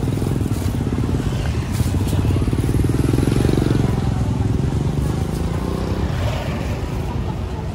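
A small motorcycle engine running close by with a steady, rapid putter, growing louder toward the middle and easing off near the end.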